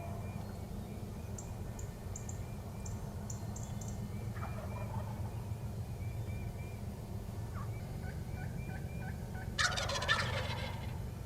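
Wild turkey gobbler gobbling: one loud, rapid, rattling gobble near the end, with a fainter, more distant-sounding gobble about four seconds in. Between them come runs of short, evenly spaced higher notes over a steady low rumble.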